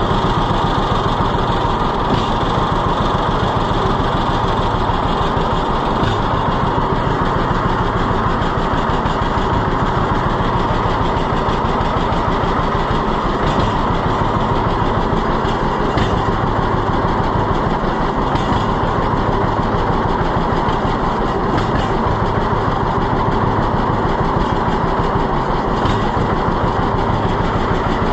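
Tractor engine running steadily at idle, a few minutes into a cold start.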